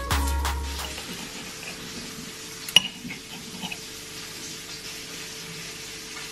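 Background music ending about a second in, then a faint steady hiss and a fork clinking sharply against a plate about three seconds in, followed by a few lighter taps as it flakes a cooked fish fillet.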